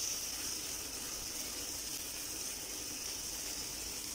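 Matar paneer masala sizzling steadily in oil in a nonstick pan as it is stirred with a silicone spatula; the masala has just begun to release its oil.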